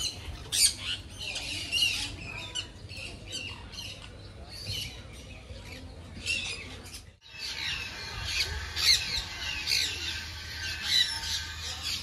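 A flock of parrots, sun conures among them, giving short, shrill squawks over and over. The sound drops out for a moment about seven seconds in, then the squawking carries on.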